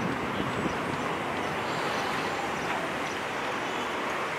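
Airbus A330 twin turbofan engines heard from the ground as a steady, even rushing drone while the airliner climbs away after takeoff.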